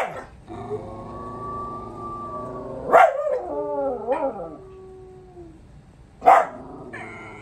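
A dog howling along with a wolf howl played on the television: a long steady howl, then wavering howls about three seconds in. Three short loud barks come about three seconds apart.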